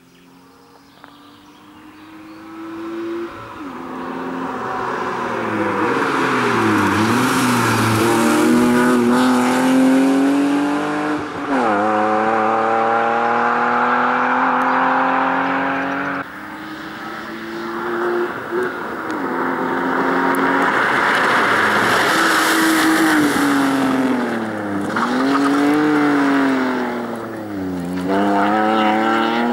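BMW 323i's 2.5-litre straight-six engine revving hard under acceleration, its pitch repeatedly climbing and then dipping sharply as the car is driven fast. It grows louder over the first few seconds as the car comes closer.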